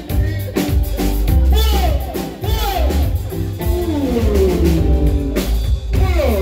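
Live band music: singing with notes that slide up and down, over electric bass guitar and a drum kit.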